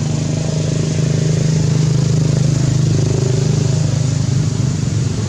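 An engine running steadily at a low, even pitch, with no change in speed.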